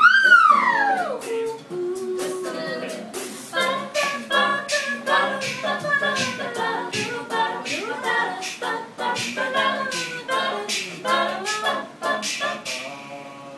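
A cappella group singing live in close harmony over a steady percussive beat. It opens with a loud high voice swooping down in pitch over about a second.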